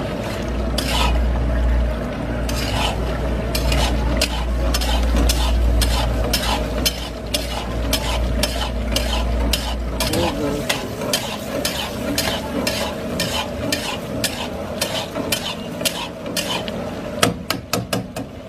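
A spoon stirring and scraping mutton karahi round the pan while the masala sizzles as it fries down (bhuna), with frequent irregular scrapes and knocks against the pan. A low rumble underneath stops about halfway through.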